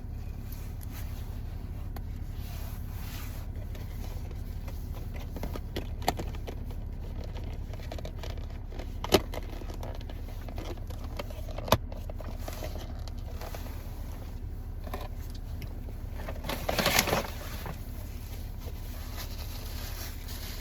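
Someone eating a cheeseburger: quiet chewing and rustling of the wrapper or paper over a steady low hum, with three sharp clicks and a louder rustle near the end.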